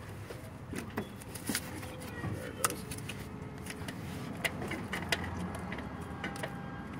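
Scattered light clicks and taps of gloved hands handling the fuel line and its fittings in an engine bay, over a steady low hum.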